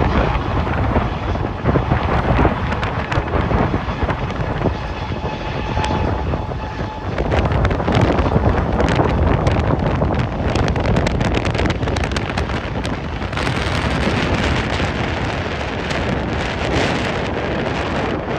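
Storm-force wind gusting across a phone's microphone: a heavy, continuous low rumble shot through with crackles, easing a little in the middle and again near the end.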